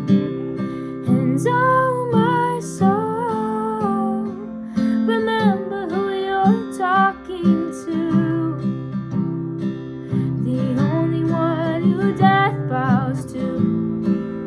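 Worship song performed with strummed acoustic guitar and a singer carrying the melody.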